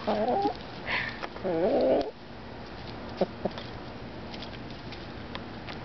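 A hen making two wavering, warbling calls in the first two seconds while eating smelts, followed by a couple of sharp short taps.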